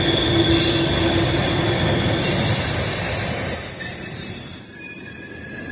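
Freight train rolling past, its wheels squealing in steady high tones over the rumble of the cars; the squeal shifts to a higher pitch about two seconds in.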